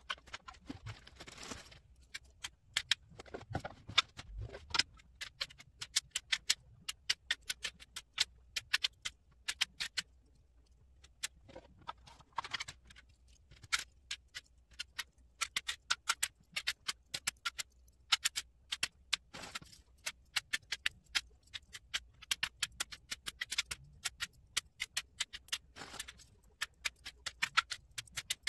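Plastic Ravensburger puzzle-ball pieces dropped one by one into plastic puzzle-sorter trays: rapid, irregular light clicks and taps, with a brief rustle every few seconds.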